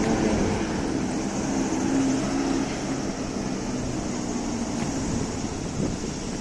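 A vehicle going by: a low hum of several steady tones over street noise, strongest at first and fading over the next few seconds.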